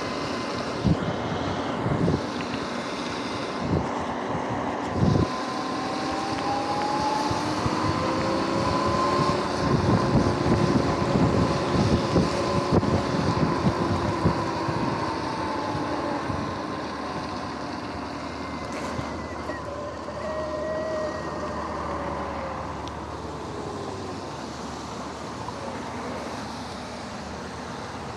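Electric dirt bike riding on rain-soaked pavement: a steady hiss of tyres on the wet road, with a motor whine that rises and then falls in pitch over several seconds. A few sharp knocks come in the first seconds, and a flurry of heavier knocks comes in the middle.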